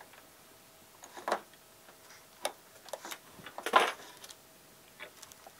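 Light clicks and taps of a soldering iron and circuit board being handled on a workbench: about five scattered ticks, the loudest just under four seconds in, over a faint steady hum.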